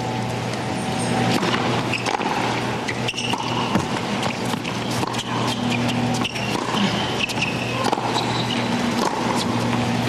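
Tennis ball struck by rackets during a serve and rally: sharp pops a second or so apart, over a steady low hum.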